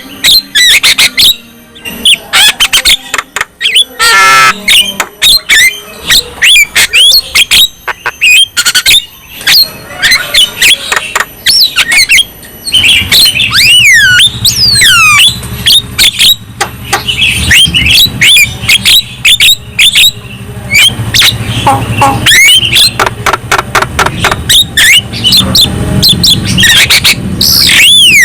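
Javan myna singing a loud, busy run of harsh squawks, sharp clicks and quick rising and falling whistles. A low steady hum joins about halfway through.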